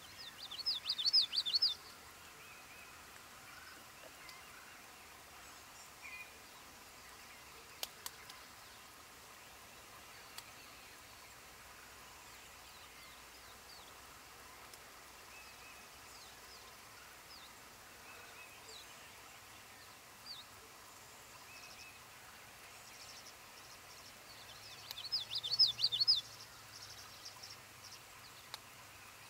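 Tree swallow twittering: two bursts of rapid, high chirps, one at the start and one near the end, with scattered faint chirps between. A single sharp click about eight seconds in.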